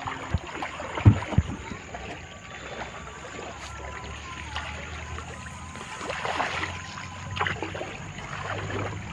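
Water sloshing and splashing, with a few sharp knocks about a second in.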